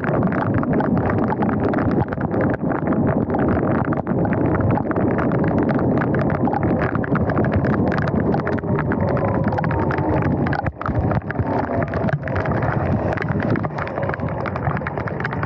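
Heavy rain pattering on a small Insta360 GO 2 action camera and rushing wind over its microphone while riding a Sur-Ron X electric dirt bike on a wet road: a loud, steady hiss thick with the crackle of drops, dipping briefly about two-thirds of the way through.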